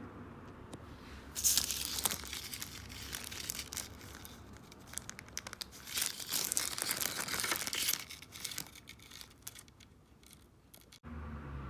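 Crackling, rustling noise with many small clicks, loudest from about a second and a half in to about eight seconds, then dying down; about eleven seconds in it cuts to a low steady hum.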